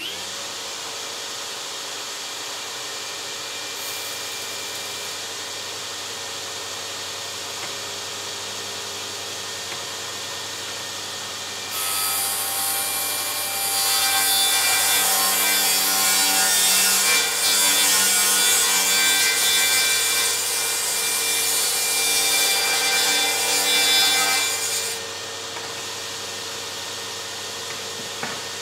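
DeWalt FlexVolt cordless table saw running steadily, then ripping a 10-degree bevel along a wooden trim board from about twelve seconds in for some twelve seconds. The cut is louder and rougher than the running saw, and the blade spins freely again after the board clears it.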